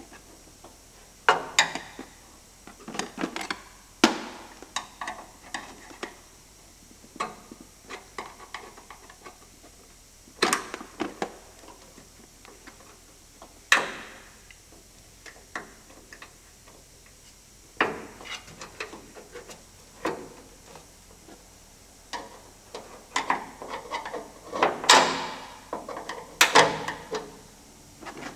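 Screwdrivers and a pick clicking, tapping and scraping at a bonnet gas strut's end fitting while the strut is fitted. Irregular sharp knocks with short gaps between them, busiest and loudest near the end.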